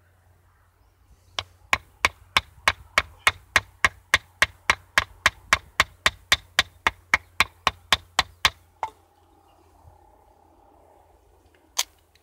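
About two dozen sharp wooden knocks at a steady pace of roughly three a second: a baton striking to drive a Cudeman 148M bushcraft knife through a stick of dry wood and split it (batoning). The knocks stop about nine seconds in, and one more comes near the end.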